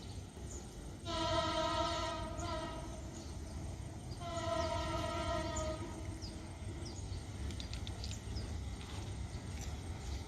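Diesel locomotive horn sounding two blasts of nearly two seconds each, a few seconds apart: the Semboyan 35 horn signal of Indonesian railways, given by the driver. A steady low rumble runs beneath.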